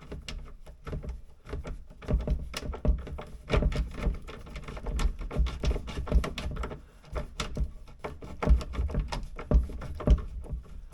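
Irregular clicks, taps and knocks of hands fitting a concealed cabinet hinge and its screws onto a cabinet door, with low thumps from handling a hand-held camera.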